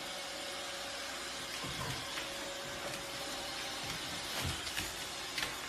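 Robot vacuum cleaner running steadily with a hissing whir. From about two seconds in, a string of dull thumps and a few clicks as a puppy paws at it on a wooden floor.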